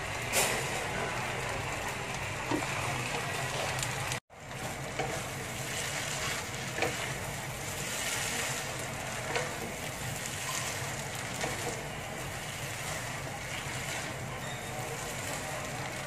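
Noodles sizzling in a hot oiled wok as a spatula tosses and stirs them, with a few sharp knocks of the spatula against the pan. A steady low hum runs underneath, and the sound cuts out for an instant about four seconds in.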